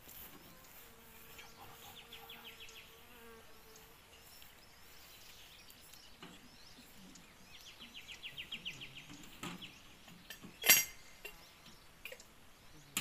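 A fly buzzing close by, with a fast high ticking twice, and a single sharp knock late on.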